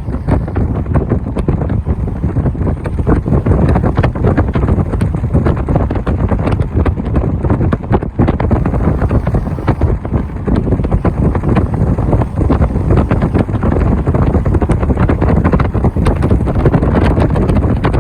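Strong wind buffeting the microphone on a moving car: a loud, low, steady rush with constant gusty flutter, the car's driving noise underneath.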